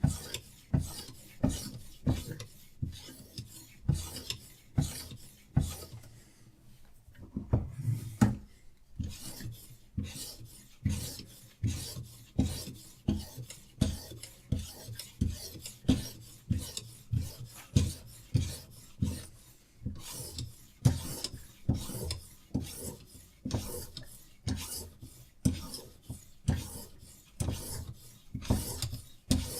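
Diamond sharpening stone on a Hapstone RS guided sharpener rasping along a knife blade in steady, regular strokes, a little more than one a second, with a short pause about six seconds in.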